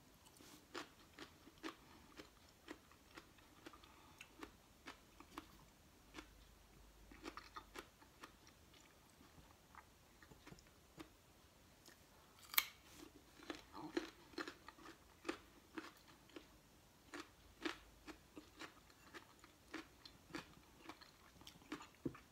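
Crunchy chewing and biting of raw cucumber and carrot sticks close to the microphone, a steady run of crisp crunches, with one sharp loud crunch just past the middle as a carrot stick is bitten.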